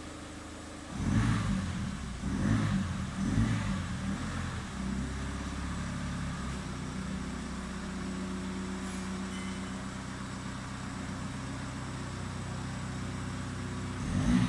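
Ford Focus ST diesel's 2.0 TDCi four-cylinder turbodiesel through a 3-inch Mongoose axle-back exhaust with a deep note, blipped three times in quick succession, then settling to a steady idle, with another rev near the end.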